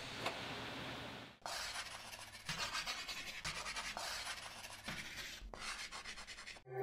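Chalk-on-board writing sound effect: a quick run of scratchy strokes starting about a second and a half in and stopping just before the end. Faint room tone comes before it.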